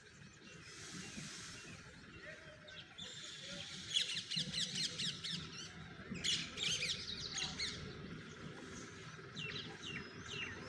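Small birds chirping in quick, high, rapidly repeated notes, busiest from about four to eight seconds in, over a low background rumble.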